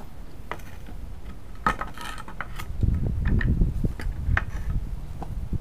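Scattered light clicks and clinks of loose steel nails and a claw hammer being handled while a pine board is shifted on concrete, about eight in all, with a small cluster around two seconds in, over a low rumble.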